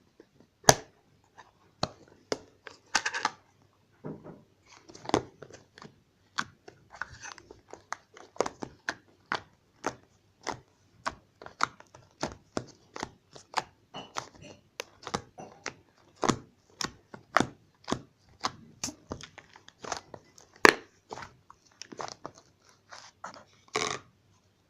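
Slime being squeezed and poked by hand, giving a long irregular run of sharp wet pops and clicks, about one or two a second, with short crackling squelches in between.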